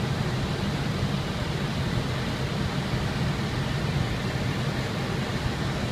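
Steady flight-deck noise of an airliner on final approach: a low, even rumble of airflow and engines with a hiss above it.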